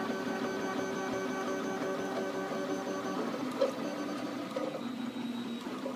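Two FDM 3D printers, a RepRap i3 and a Trinity Labs Aluminatus, printing: their stepper motors sing in several steady tones that change pitch as the print heads change moves. A short sharp click comes about three and a half seconds in.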